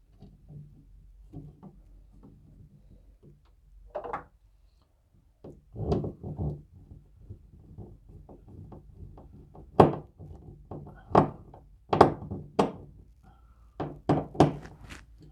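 Irregular sharp knocks and thuds, loudest and closest together in the second half, from fastening a smoke alarm's plastic mounting base to a ceiling with wall anchors and screws.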